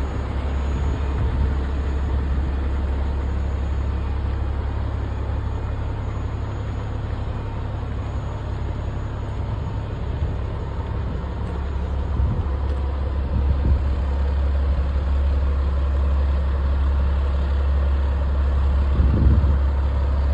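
Heavy-duty wrecker's diesel engine idling steadily with a constant low rumble.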